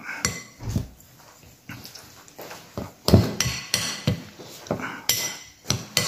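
Metal spoon stirring a dry, gritty ground-seed mix in a glass bowl: irregular scrapes and clinks of the spoon against the glass, the loudest cluster a little past the middle.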